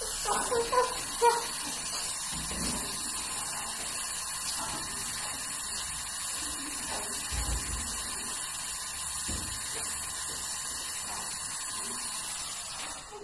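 Steady hiss of a gas brazing torch flame while fittings are brazed onto a refrigerator compressor; it stops abruptly near the end.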